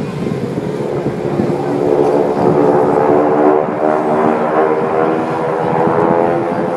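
Propeller airplane engine running overhead, a steady drone of even tones that grows louder over the first two seconds and then holds.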